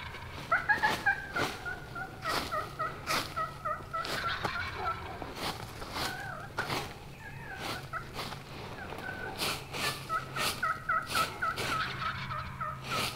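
Wild turkey yelping in runs of short, evenly spaced notes, with sharp clicks scattered among them.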